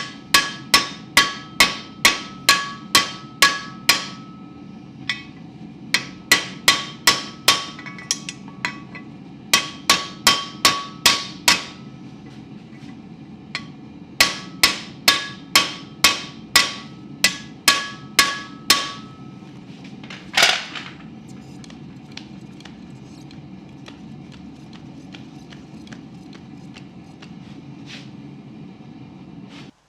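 Hammer blows setting a hot rivet in a pair of blacksmith's tongs, in runs of quick ringing metal strikes about two to three a second with short pauses between runs. Near the middle the hammering stops, followed by one brief rasping sound and then only a steady low hum.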